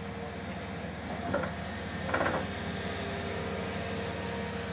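A heavy construction machine's engine running steadily with a low, even hum, and a short louder sound about two seconds in.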